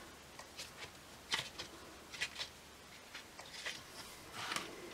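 Pages of a craft paper pad being handled and turned, with soft paper rustles and a few light taps.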